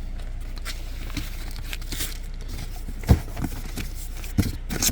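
A shipping package being handled and opened: packaging crinkling and tearing with scattered small clicks, and a few dull knocks about three seconds in and again near the end.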